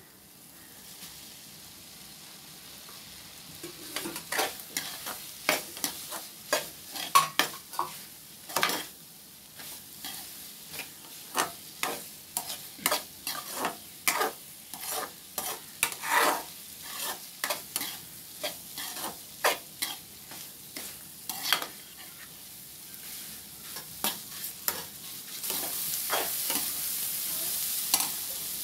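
Spatula stirring scrambled egg into fried masala in a kadai, its strokes scraping and clinking against the pan one or two times a second over a steady sizzle. The sizzle grows louder near the end.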